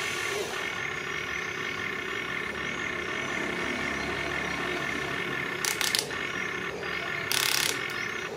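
Small electric motors and plastic gearing of a radio-controlled construction model whining steadily, with two short rattling bursts late on.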